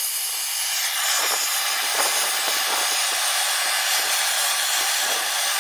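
Oxy-acetylene heating torch burning with a steady hiss, putting heat into a bent steel scraper sideboard to heat-shrink it straight.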